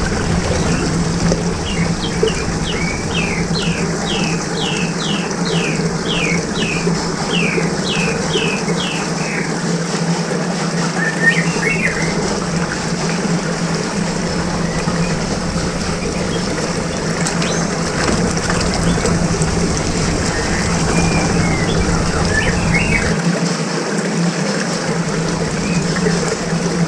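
A steady rush of churning water with a low hum. Over it a bird sings a run of quick, falling chirps about two a second for several seconds near the start, then gives a few scattered chirps later.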